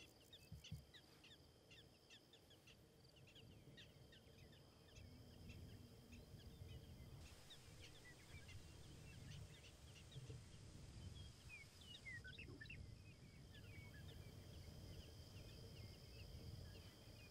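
Faint grassland ambience: many short, high bird chirps and calls throughout, over two steady high tones and a low rumble.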